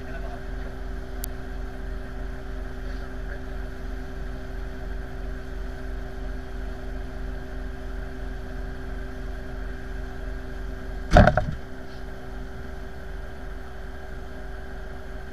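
Pushback tug's engine idling with a steady low, pulsing hum, while the airliner waits hooked to the tow. About eleven seconds in there is one loud, sharp knock.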